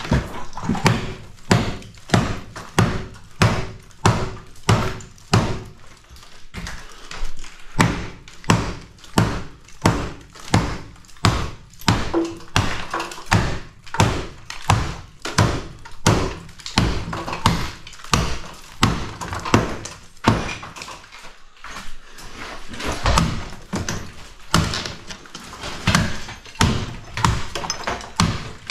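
Claw hammer striking wall sheeting over and over, about two blows a second, as the sheeting is smashed and broken off a bathroom wall's steel frame. There is a brief pause about two-thirds of the way through.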